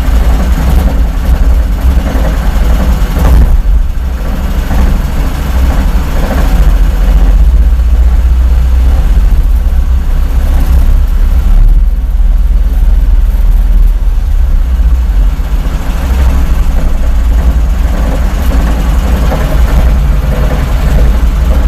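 Engine idling with a repeating knock, a 'dudukh-dudukh, dudukh-dudukh', from the shaft between the engine and the gearbox, over the gearbox whirring at idle with the clutch engaged. The cause of the knock is unknown to the owner: the U-joints and splines show no play, and he wonders about play in the gearbox.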